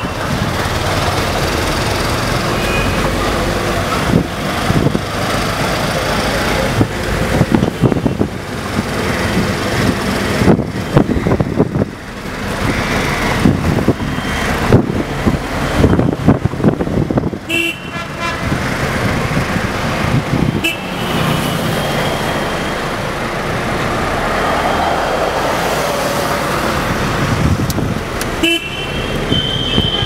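Busy road traffic heard from inside a moving car: the steady rumble of the car and road with buffeting noise, and a few short car horn honks, about halfway through and near the end.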